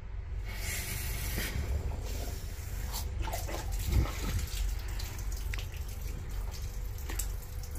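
Water hissing through a braided steel supply hose as a ball valve is opened to feed a gas boiler, the hiss strongest in the first second or so. Scattered clicks and a knock about four seconds in come from handling the valve and fittings.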